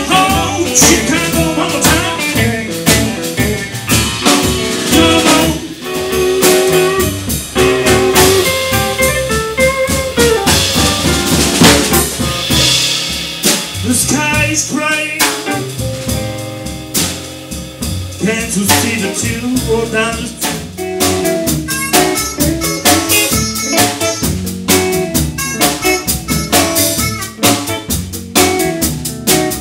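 Live blues band playing with a steady drum beat: electric guitar, upright double bass and drum kit.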